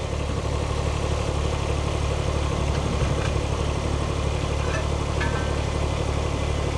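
Tractor engine idling steadily, with a couple of faint clicks partway through.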